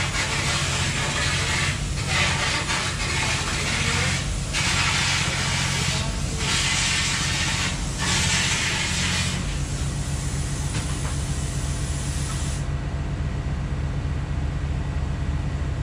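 Hitachi EX3600 excavator's 16-cylinder diesel engine running steadily, heard close up. Over it is a loud rushing of air that comes in stretches of about two seconds and eases off about ten seconds in.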